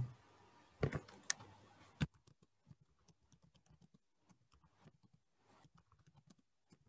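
Faint clicking at a computer, like keys and mouse buttons: a few sharper clicks in the first two seconds, then scattered faint ticks.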